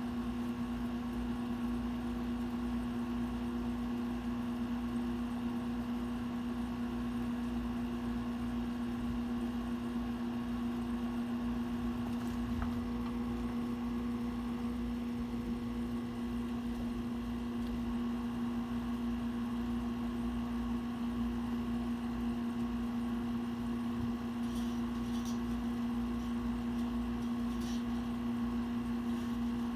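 A steady, unchanging hum, like a running appliance or fan, with a few faint light ticks about halfway through and several more near the end.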